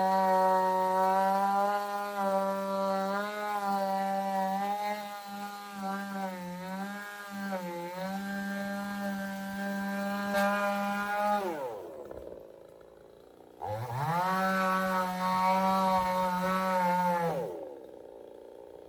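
Gasoline chainsaw running at high revs, its pitch wavering and dipping, let off about two thirds of the way through so the note falls away, then revved up again for a few seconds and let off once more near the end.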